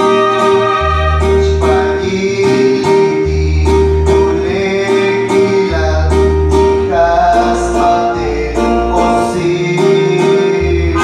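Gospel-style music over a sound system: a man singing into a handheld microphone over an instrumental accompaniment, with a bass line that changes note every second or two.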